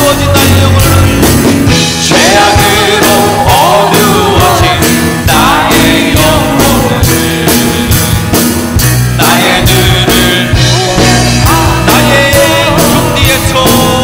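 Live contemporary worship band playing with a steady beat while a male worship leader sings a Korean praise song into a handheld microphone.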